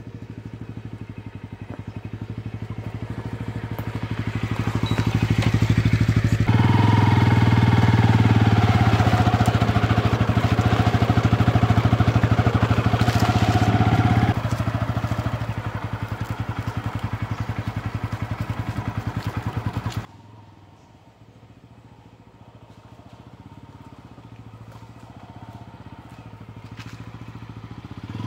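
Motorcycle engine running under way. It grows louder over the first few seconds, stays loud for several seconds, then eases off. About two-thirds through it drops suddenly to a much fainter running sound.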